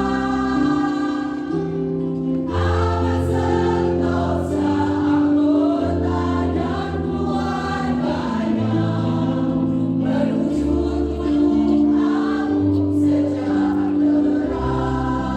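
School choir singing in parts, with sustained low bass notes of an instrumental accompaniment underneath.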